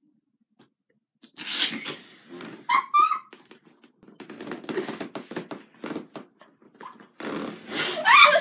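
Rustling and bumps of a handheld phone camera being moved about against clothing, with a short rising high-pitched squeak about three seconds in and another near the end.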